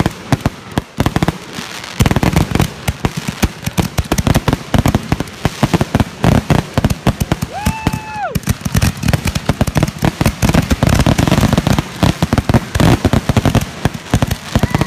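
Fireworks finale: a rapid, dense barrage of bangs and crackling from many shells bursting together, thickening into an almost continuous volley about two seconds in. A brief held tone that falls away sounds about eight seconds in.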